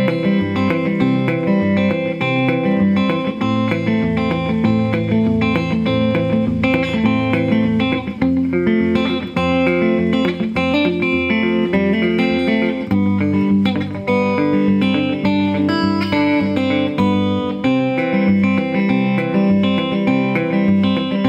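Hollow-body electric guitar played fingerstyle with a thumbpick in a Travis-picking pattern. The thumb keeps an alternating bass line going under the picked melody notes, without a break.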